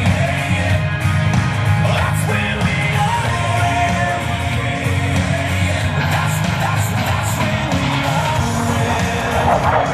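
Rock music with a singing voice, with a jet aircraft's roar building near the end.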